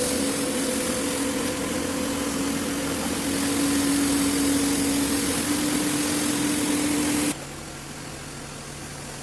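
A machine's engine running steadily, with a humming tone that rises slightly. About seven seconds in it cuts off abruptly to a quieter, lower hum.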